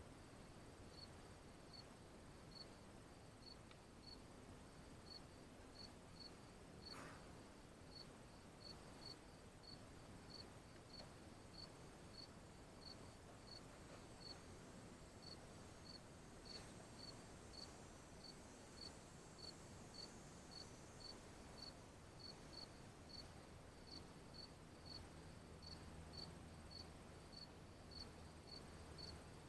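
Faint, short high-pitched chirps at one steady pitch, repeating evenly just under twice a second, with a single soft click about seven seconds in.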